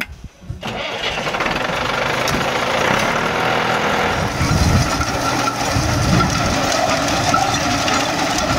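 International Harvester tractor's engine starting about half a second in, then running steadily.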